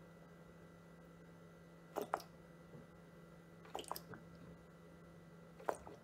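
Rinse aid being squeezed from an upturned plastic bottle into a dishwasher's rinse aid reservoir: a few faint, brief squishes and clicks over a low steady hum.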